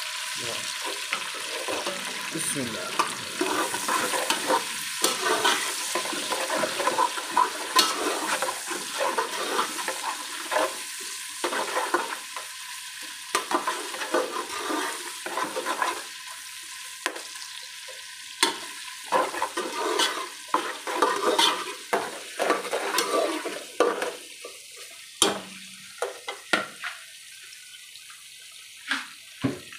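Sliced onions frying in oil in an aluminium pot, sizzling, while a metal spatula stirs them and scrapes and clicks against the pot. The onions are being browned as the base of a curry. The stirring grows sparser and the sizzle quieter over the last few seconds.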